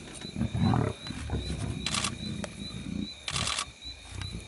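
Lions growling at close range while feeding on a kill. The rough low growls are loudest about half a second in, with two short hisses near the middle.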